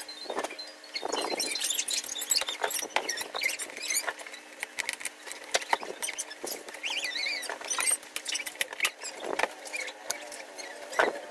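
Hands handling a cardboard box and peeling a seal sticker off it: scratchy rustles and clicks of fingers and sticker on cardboard, with a brief squeak about seven seconds in.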